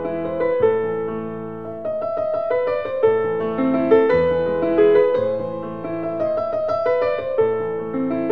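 Background piano music, with notes and chords struck about once a second and left to ring.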